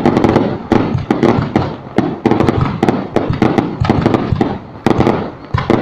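Fireworks display: a rapid, unbroken string of loud bangs from bursting shells, several a second, each trailing off in a rumbling echo.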